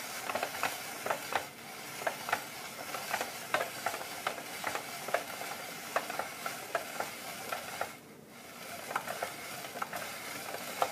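A plastic Paderno spiral vegetable slicer being hand-cranked through a yellow squash: a steady crisp shredding with many small clicks as the blade cuts the squash into noodles. It breaks off briefly about eight seconds in, then carries on.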